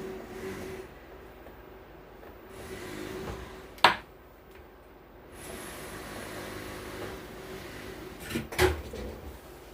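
Two sharp knocks, one about four seconds in and a louder one near the end, over a steady low hum: tools or parts being set down and handled on an electronics repair bench.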